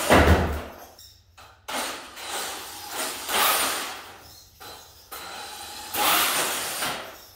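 Electric Redcat Racing Volcano RC truck, fitted with a new 21-tooth pinion, driven in a series of short bursts across a slippery garage floor: its motor and gears whir and its tyres spin, stopping and starting several times.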